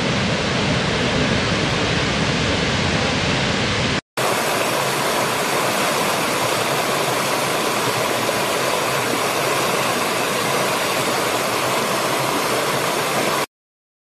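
Rushing water from a large waterfall, full and heavy with plenty of low rumble, for about four seconds. After a brief break, a small rocky stream rushes and splashes over stones, brighter and thinner. The sound cuts off abruptly shortly before the end.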